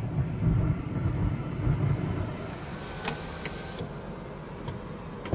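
Road and engine rumble heard from inside a moving car. The rumble eases about halfway through as the car slows, with a few faint clicks a little after that.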